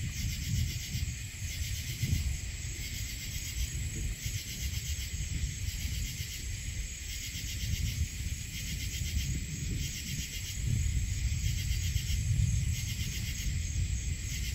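Night insects, crickets or katydids, calling in a steady, evenly pulsing high-pitched chorus over a low rumble that swells and fades.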